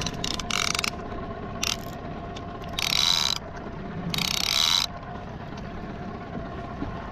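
Conventional fishing reel's clicker ratcheting in four short spurts as line is let out to send a fish down on a descending device. The two later spurts are the longest and loudest.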